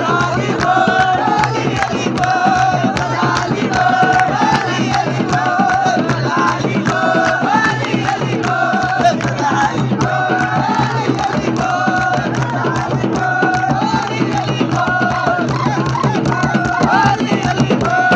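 Fast, steady drumming with a short chanted phrase sung over it again and again, every second or so, and noise from the dancing crowd.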